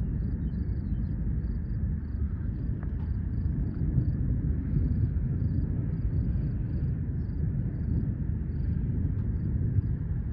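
Wind rumbling steadily on the microphone in the open, with faint, high chirps repeating a few times a second.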